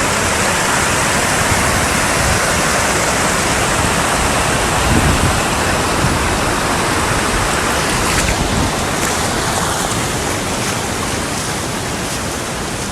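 Muddy flash-flood water rushing past in a steady, loud, continuous wash of noise.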